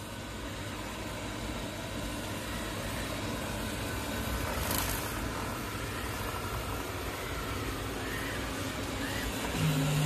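Roborock S7 MaxV robot vacuum running, a steady whir of its suction fan and brushes on a tiled floor. A brief click comes about five seconds in, and a short low hum near the end.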